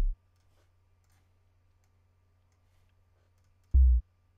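Deep, steady sub-bass note from a software synth (the dubstep bass drop, made with FL Studio's Buzz Generator Adapter), cutting off just after the start. Faint mouse clicks follow, then one short deep bass hit near the end.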